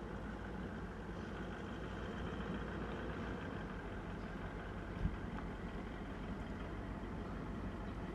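A vehicle engine idling steadily as a low hum, with a single short knock about five seconds in.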